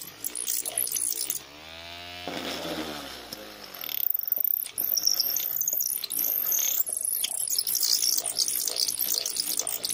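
Homemade drill built from a 775 DC motor, its bit boring into a wooden block with a rough, scratchy cutting noise. For a couple of seconds near the start the motor runs free with a steady hum, then it goes back into the wood.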